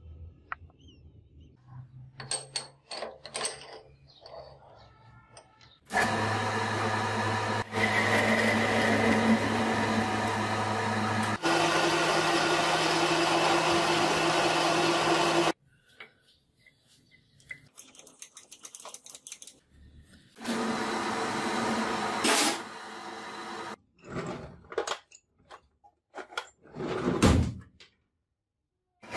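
Electric power tool motor running steadily in two stretches, its pitch shifting once partway through the first, with scattered clicks and knocks before and after.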